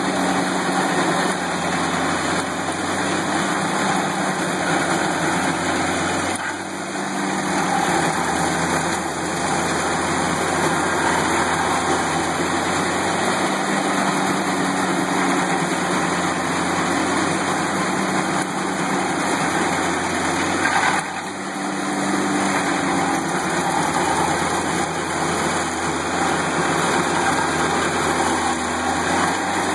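Towed stump grinder's engine running steadily under load as its cutter wheel grinds into a tree stump. The level dips briefly twice.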